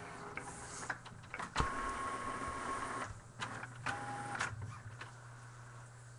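Printer feeding and printing a sheet. There is a sharp clunk about one and a half seconds in, then a steady mechanical whine for over a second, clicks, and a shorter whine about four seconds in.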